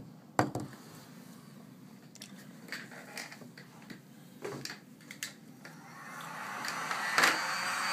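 Scattered light clicks and ticks of a prying tool working shattered glass off an iPad 2's screen, the sharpest about half a second in. A steady hiss swells in over the last two seconds.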